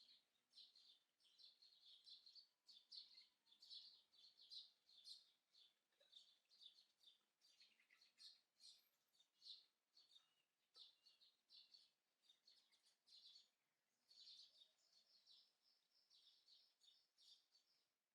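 Small birds chirping, many short high calls in quick succession with brief pauses, faint.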